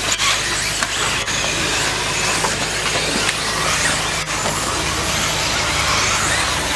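Electric 1/10-scale 4WD RC buggies racing on a dirt track. Their electric motors and gearing give a dense, high whine that rises and falls as the cars accelerate and brake, mixed with the hiss of tyres on loose dirt.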